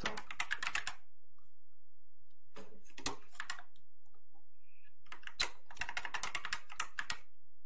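Typing on a computer keyboard in three short bursts of rapid keystrokes, with pauses between them.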